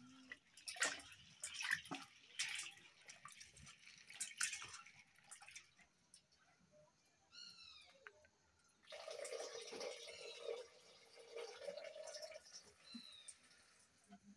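Hands swishing onions and tomatoes in a steel bowl of water, with splashes and drips, loudest in the first few seconds. A brief run of high chirps comes about halfway through.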